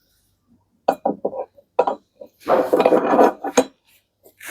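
A steel post stirrup and its bolt being worked against a drilled timber post: a quick run of knocks, then a coarse scraping rub lasting about a second, ending in a click.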